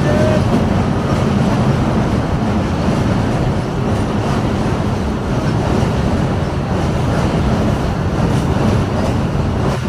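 Steady, loud low mechanical rumble that runs on without a break.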